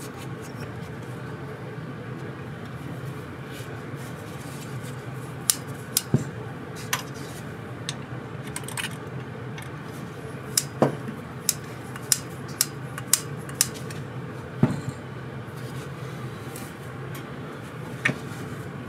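Scattered small metallic clicks and taps as carburetor parts and a screwdriver are handled during reassembly, a dozen or so irregular knocks, over a steady background hum.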